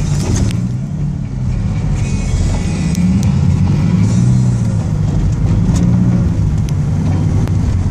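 Nissan 300ZX Turbo's turbocharged V6 revving up and down as the car drifts round on wet pavement, heard from inside the cabin.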